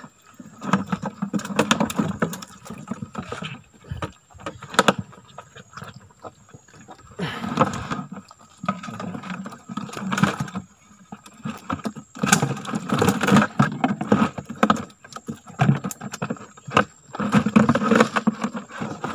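A wire-mesh fish trap being handled over a small boat while fish are emptied from it into a plastic jerrycan: irregular bursts of rattling and sharp knocks, several times over.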